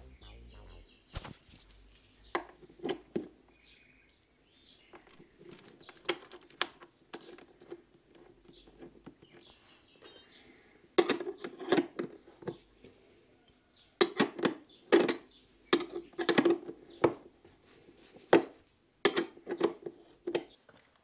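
A wrench clicking and clinking on battery terminal bolts and cable lugs as the cables are tightened down. The clicks are sparse at first, then come in quick clusters through the second half.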